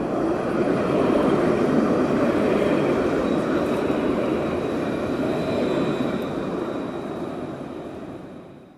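A train running by: a steady rushing rumble that swells over the first second and fades away over the last few seconds.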